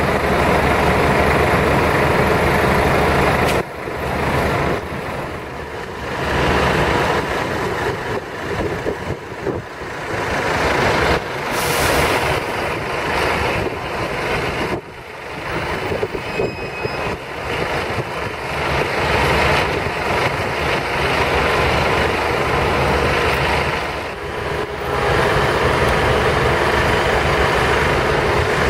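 City transit buses running and pulling past close by, diesel engines humming under the hiss of tyres on a wet road. There is a short sharp air-brake hiss near the middle and a brief beep a few seconds later.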